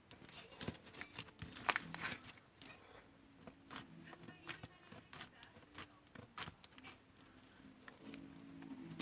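Slime being squished and pressed by hand, giving an irregular run of sharp clicks and pops, busiest about two seconds in.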